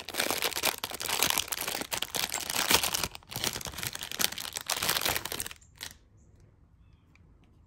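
Packaging crinkling and rustling as a new bracelet is handled and unwrapped, a dense crackle that stops suddenly about five and a half seconds in.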